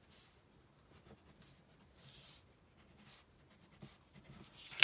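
Pencil drawing a line along a steel ruler on paper, a faint scratching, with one sharp click at the very end.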